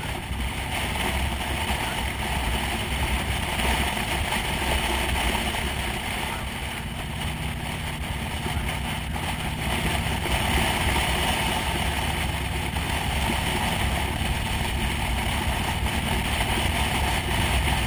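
Steady ride noise of a motorcycle cruising along a road: engine running with wind rushing past the bike.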